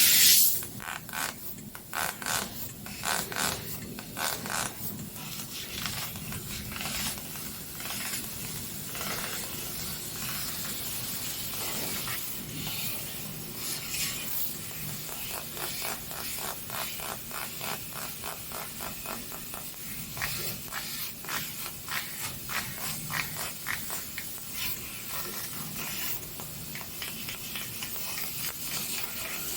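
A 3000 W CNC fiber laser cutting machine cutting sheet metal: a steady hiss with runs of rapid, sharp crackling ticks, several a second.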